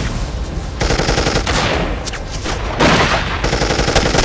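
Machine-gun fire in rapid bursts, starting about a second in, with a short lull a little past the middle before the firing picks up again.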